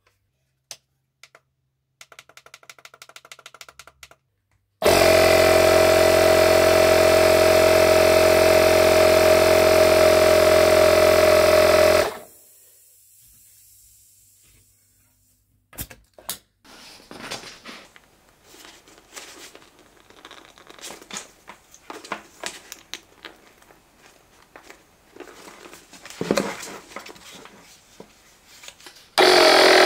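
Parkside PMK 150 A1 portable tyre compressor starting about five seconds in and running loud and steady while inflating a bicycle tyre, stopping abruptly about seven seconds later. Faint clicks come before it and scattered handling knocks after it, and the compressor starts up again just before the end.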